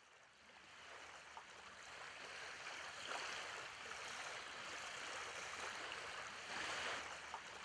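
Faint lakeside ambience: a steady rush of lake water lapping, fading in over the first second or so.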